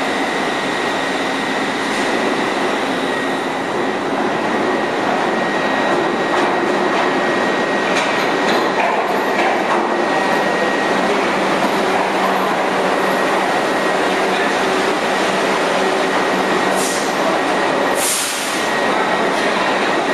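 R62A subway train running into an underground station platform: a steady noise of wheels and motors with a thin, steady high whine over it. Two short hissing bursts come near the end.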